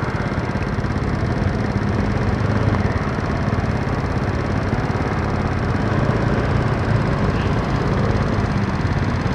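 Motorcycle engine running steadily while riding, with road noise.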